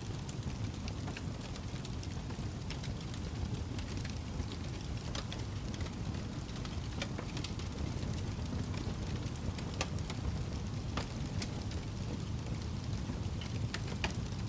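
Wood fire burning in a fireplace: a steady low rumble of the flames with scattered sharp crackles and pops at irregular intervals.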